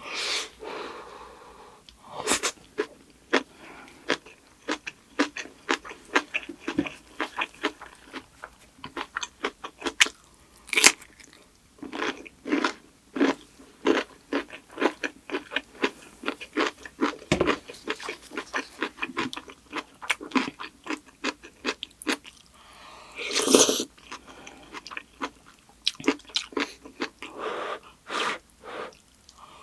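Mouth chewing and crunching kimchi with rice: rapid, irregular wet clicks and crunches, with a few louder crunchy bites along the way.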